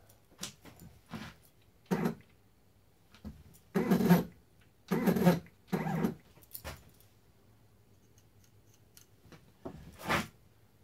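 Short bursts of the CNC mini mill's stepper motors jogging the table, the loudest three close together in the middle and one more near the end, as the dial test indicator is positioned on the vise jaw for tramming.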